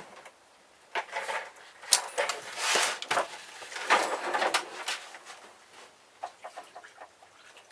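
Water glugging and splashing in irregular bursts as it is poured out of an old water purifier's housing, tailing off near the end.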